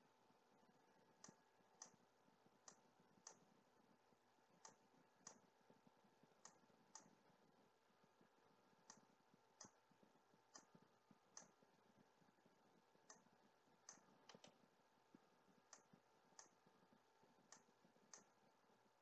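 Faint computer mouse clicks at irregular intervals, about one a second, over near silence.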